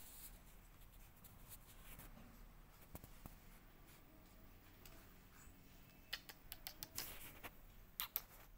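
Quiet room with faint scattered light clicks and taps, and a quicker run of sharper clicks near the end.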